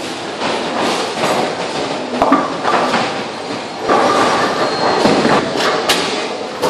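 Bowling ball rolling down a wooden lane with a steady rumble, with pins clattering and sharp clacks from the lanes.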